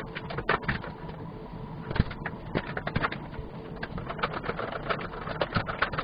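Hand tool scraping and picking through plasterboard to cut a channel and hole for a cable: irregular scratches and light knocks, a few a second.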